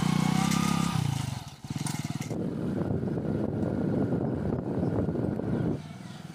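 Motorcycle engine running as the bike rides off, followed from about two seconds in by a dense, rough low rumble that cuts off suddenly near the end.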